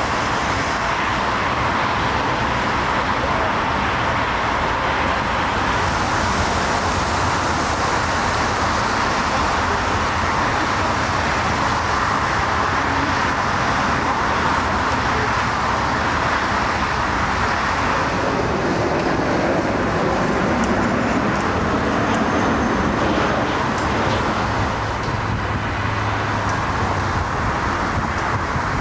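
Steady, unbroken roar of jet airliners on landing, their engine noise blended with road traffic noise.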